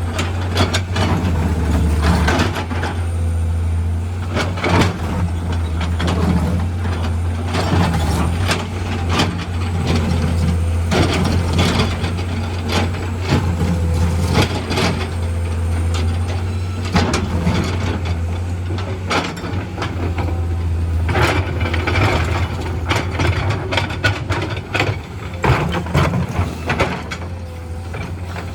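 Heavy diesel earth-moving machinery at work: a steady low engine drone under frequent clanks and knocks of rock and steel.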